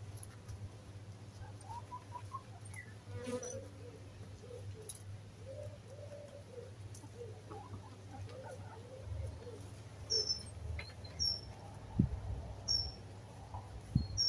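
Hens clucking softly in short, low, wavering calls while they forage. From about ten seconds in, a bird gives a string of short, high chirps roughly once a second.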